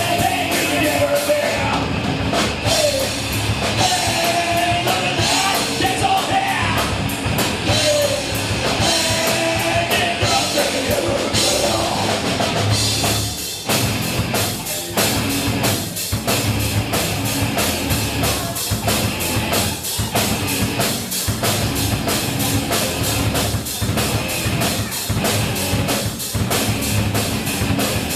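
Rock song with a singer over drum kit and band; the singing drops out about halfway through and a steady drum beat carries on with the band.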